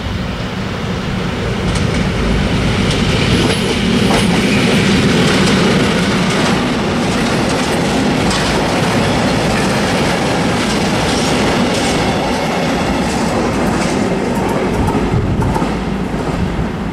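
6Dg diesel locomotive hauling a train of tank wagons past at close range. It is loudest about five seconds in, and the wagon wheels clatter over the rail joints throughout.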